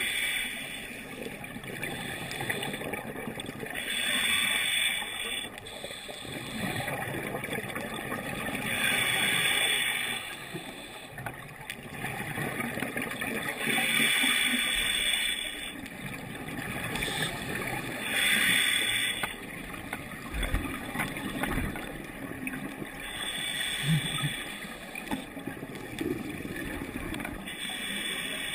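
Scuba diver breathing through a regulator, heard underwater: a burst of exhaled bubbles about every four to five seconds, with a quieter low rumble between breaths.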